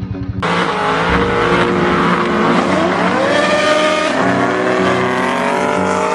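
Sports car accelerating hard down a drag strip, its engine rising steadily in pitch, with a gear change about four seconds in.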